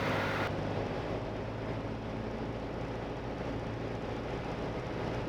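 Single-engine light aircraft's piston engine and propeller droning steadily as heard inside the cockpit, with a radio hiss cutting off about half a second in.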